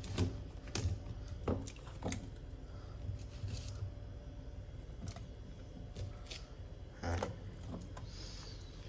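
Peeled taro corms being handled in a plastic colander and put into a steel bowl of salt water: scattered soft knocks and rustles, with a light swish of water near the end.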